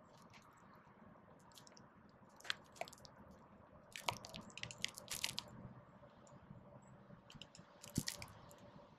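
A dark-eyed junco and a house sparrow pecking and cracking seed on the ground: scattered sharp ticks and crunches, bunched into a quick run about four to five seconds in and another near the end.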